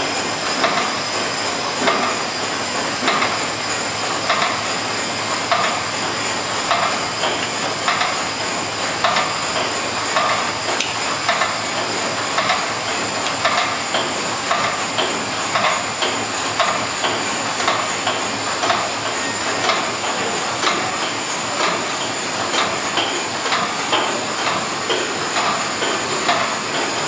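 The steam tug Cervia's reciprocating steam engine running on steam, its rods and cranks turning with a regular rhythmic knocking and clatter over a continuous hiss.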